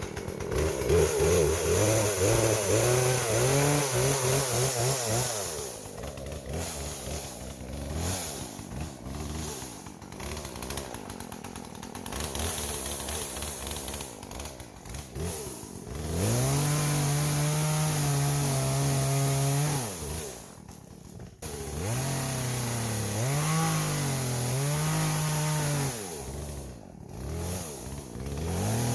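Two-stroke chainsaw being run at full throttle and let fall back to idle several times, with long stretches held at high revs.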